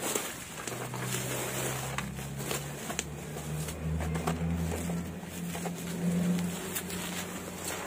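Bubble wrap rustling with small crackles as it is handled and pulled away from a boxed rifle scope. Underneath it, a low engine hum begins about a second in and wavers in pitch.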